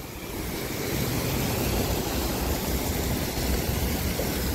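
Steady splashing of a water fountain, with a low traffic rumble underneath.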